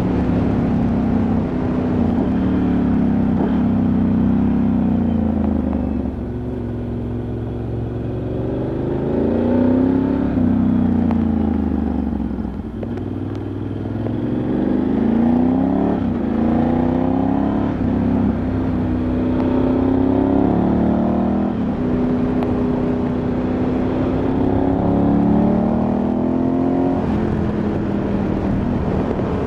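Ducati Multistrada 1100S's air-cooled L-twin engine heard onboard while riding, its pitch climbing again and again as it pulls through the gears and dropping back at each shift, with two spells of easing off the throttle.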